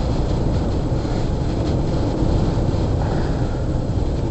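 Steady road noise inside a moving car: engine and tyres running at highway speed on a snowy road.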